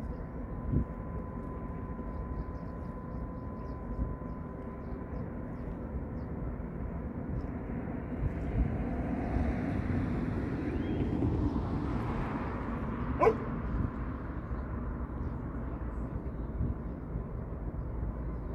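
Outdoor waterfront ambience: a steady low rumble with a faint steady hum. A louder swell of noise builds and fades about halfway through, and a single sharp click comes about two-thirds of the way in.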